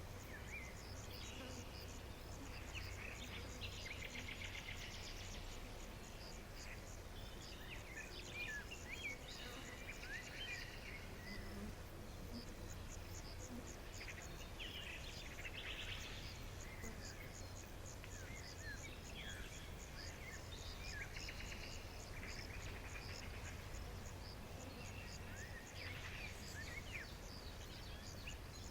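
Nature ambience: crickets chirping in a fast, even rhythm throughout, with scattered short bird chirps and a steady low rumble underneath.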